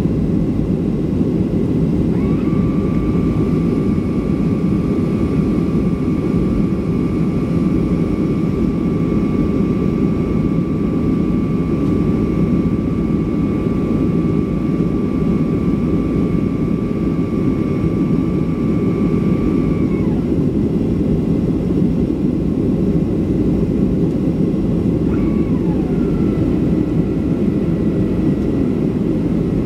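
Steady cabin noise inside a Boeing 737-500 in its climb after takeoff: its CFM56 jet engines running with the rush of air over the fuselage. A steady whine comes in a couple of seconds in and cuts off about two-thirds of the way through; near the end another whine falls in pitch and settles lower.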